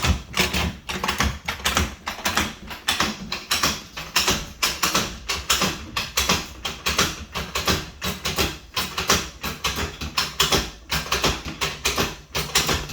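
Car jack being worked to raise a car: a steady run of sharp clicks and clacks, a few a second.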